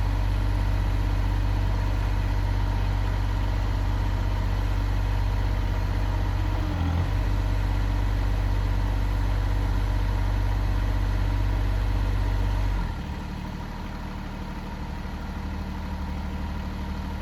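The engine of a heavy machine runs at high revs under load. It dips briefly about seven seconds in, then is throttled back to a lower, quieter idle near the end.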